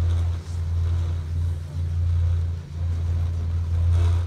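Steady low rumble of wind buffeting a phone's microphone as it moves down a ski slope, dipping briefly a few times.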